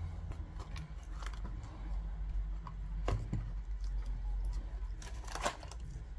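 Hands and tools handling a Bose SoundLink Color II speaker to work a stuck part loose: scattered clicks, taps and scrapes, with sharper knocks about three seconds and five and a half seconds in, over a low steady hum.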